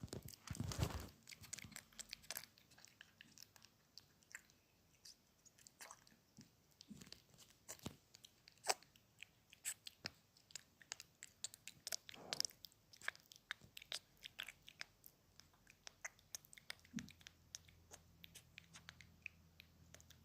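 Faint, irregular crunching and clicking, like close-up chewing, with the loudest crunch about a second in. A low steady hum joins near the end.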